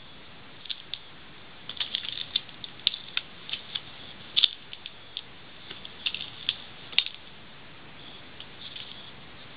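Metal-tipped high heels clicking in walking: sharp, irregular clicks, some coming in quick clusters, the loudest near the middle.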